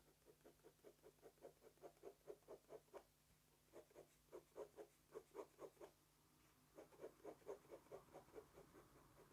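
Ink pen hatching on sketchbook paper: faint, quick, even scratching strokes, about five a second, in three runs with short pauses between.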